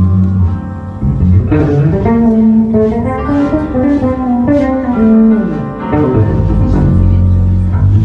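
A band playing an instrumental passage led by guitar, with bass guitar underneath.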